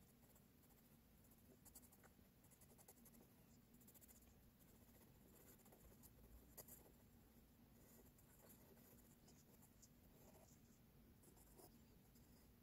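Faint scratching of an HB pencil on drawing paper, in short runs of quick hatching strokes.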